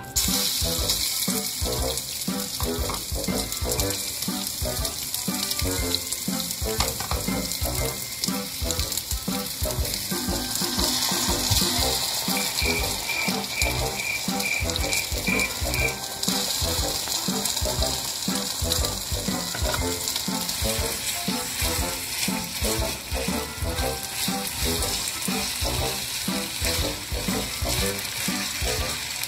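Chicken frying in hot oil in a frying pan: a steady sizzle with dense crackling.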